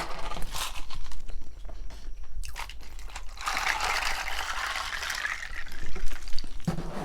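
Close-miked eating: crunchy bites and chewing of a grinder sandwich, with scattered sharp clicks and a longer noisy stretch in the middle.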